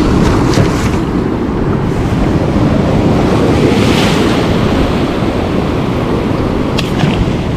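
Sea surf breaking and washing ashore, with wind buffeting the microphone; a wave washes up with a rising hiss about four seconds in.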